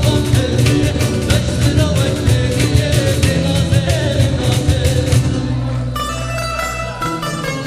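Kurdish folk music played on plucked string instruments over a steady drum beat. About six seconds in, the drums drop out and the plucked strings carry on alone.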